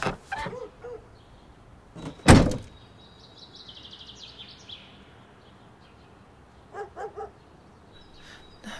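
A single heavy thunk about two seconds in, then a quick run of fading high clicks, and three short chirps near the end.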